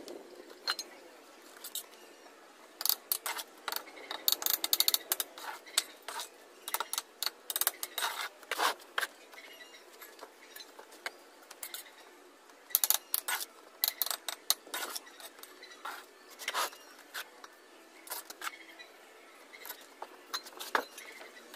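Bricklaying with a steel trowel: mortar scooped and scraped from a tub and spread on hollow clay bricks, with irregular clusters of sharp scrapes, clinks and taps.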